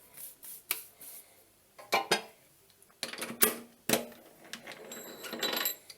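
Metal clinks and clanks: steel parts and tools knocked and set down, a few separate strikes with a brief ringing, the busiest stretch in the second half.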